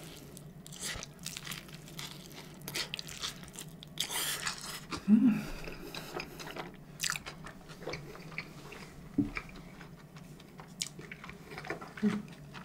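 Close-miked biting and chewing of a slice of Chicago-style pizza with a thick crust: crisp crunches and many short wet clicks. A brief low hum about five seconds in is the loudest moment.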